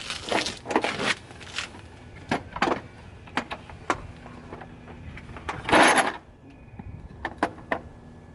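Metal hand tools and parts clinking and clanking in irregular knocks, with a louder rasping scrape lasting about half a second near the six-second mark.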